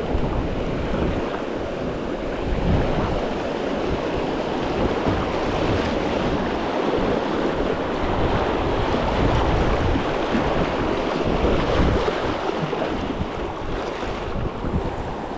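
River rapids rushing and splashing around a kayak as it runs through white water, a steady loud rushing noise, with wind buffeting the microphone.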